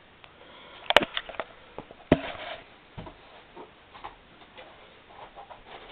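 Scattered handling knocks and clicks: a sharp knock about a second in, another just after two seconds, then smaller ticks.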